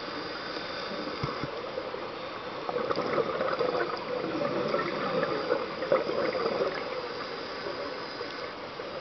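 Underwater bubbling and gurgling heard through a camera housing: a scuba diver's exhaled bubbles, swelling for a few seconds in the middle, with faint scattered clicks.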